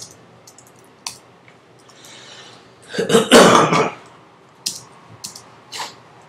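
A man clears his throat loudly about three seconds in, lasting about a second. Scattered single keystrokes on a computer keyboard click before and after.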